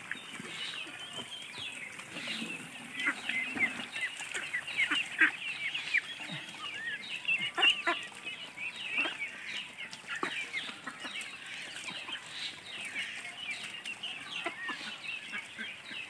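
A flock of ducklings peeping without pause: many short, high calls overlapping, with a few louder ones standing out.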